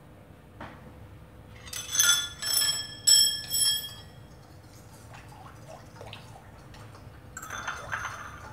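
A metal whisk and spoon clinking against a bowl while stirring milk and sugar: four sharp, ringing clinks about two seconds in, then a softer cluster of clinks near the end.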